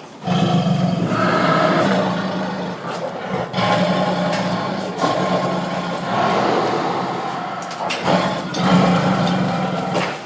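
Angry tiger growling and roaring: a run of long, rough, deep growls broken by a few short pauses, the sound of a tiger's threat display.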